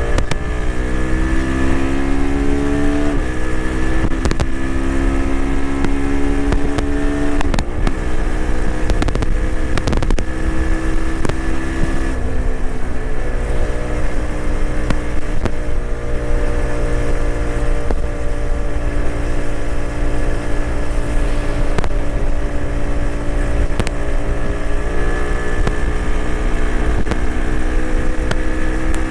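TVS Apache RTX 300's single-cylinder engine running on the highway under a rider-mounted camera, with wind rushing over the microphone. The engine note climbs and then drops at a gear change about three seconds in, shifts again around seven and twelve seconds, then holds a fairly steady cruising note.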